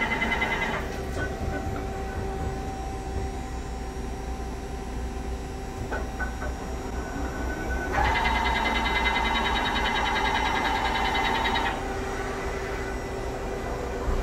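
Kingston LC38X160 CNC hollow-spindle lathe running under power, with a steady low hum and a faint steady tone. A high electric whine of several tones stops within the first second. It comes back louder about eight seconds in and cuts off abruptly near twelve seconds.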